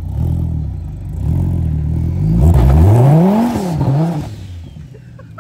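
Dodge Viper's V10 running, then revving up and back down over about two seconds as the rear tyres spin and smoke, with a loud rushing hiss from the wheelspin. The engine drops back to a quieter run near the end.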